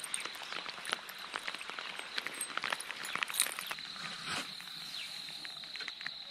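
A steady high-pitched insect drone, with irregular light ticks and taps scattered over it.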